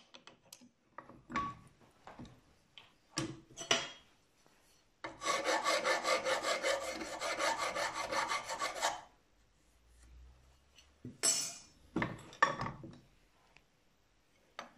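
A hand file scraping back and forth across the jaw of a steel adjustable wrench in quick, regular strokes for about four seconds. Scattered metallic clicks and knocks come before and after it.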